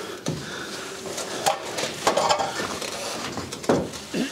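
Scattered knocks, scrapes and clatter of gypsum drywall boards being handled and hauled up by hand, about four sharp knocks spread over the few seconds.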